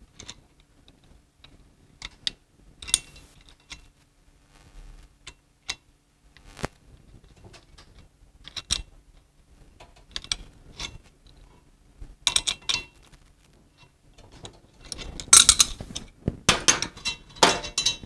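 Steel adjustable wrenches clicking and scraping on a valve stem nut as the stem is loosened from a cast-iron valve body. There are scattered metal clicks, and a denser, louder metallic clatter in the last few seconds.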